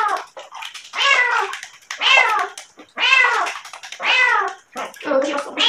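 Wet cat meowing loudly and repeatedly while being bathed in a basin, about one call a second, each call falling in pitch: the cat protesting the bath.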